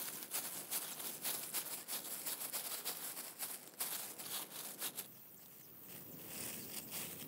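Soft crinkling and rustling of thin plastic food-prep gloves as ground meat and eggplant slices are pressed and slid onto a kebab skewer, with a quieter pause about five seconds in.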